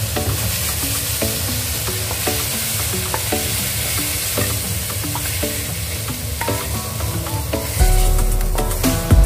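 Meat and flowering Chinese chives sizzling in a hot stainless-steel wok as they are stirred and tipped out, a steady frying hiss. Soft background music plays underneath and grows louder near the end.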